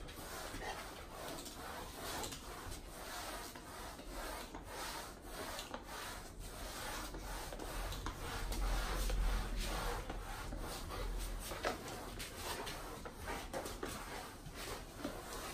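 Mop head scrubbing back and forth over a hard floor in quick, repeated rubbing strokes. A low rumble swells for a couple of seconds midway.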